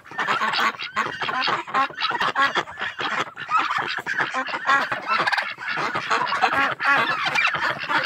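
A mixed flock of domestic geese, ducks and turkeys calling over one another at feeding time: many short overlapping honks and calls in a dense, constant chatter.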